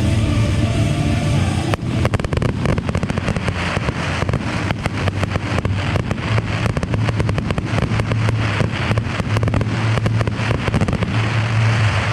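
Fireworks crackling as dense, rapid pops that begin suddenly about two seconds in and run on until near the end, over show music with a steady bass.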